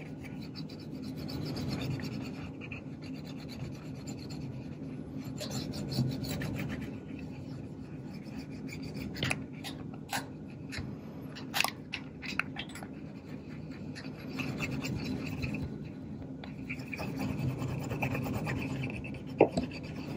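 Steady rubbing and scrubbing on the black plastic body of a Kodak Instamatic 300 camera, wiping off white oxidation from the plastic. A few light clicks of the camera being handled come around the middle, and one sharper click near the end.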